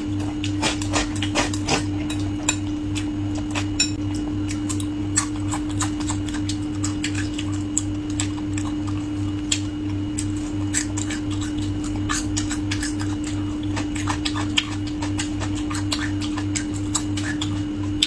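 Close-miked eating sounds: a steady stream of small sharp clicks and crunches from chewing food and handling utensils, over a steady low hum.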